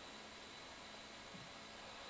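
Faint steady hiss of room tone and recording noise, with a very soft low bump about one and a half seconds in.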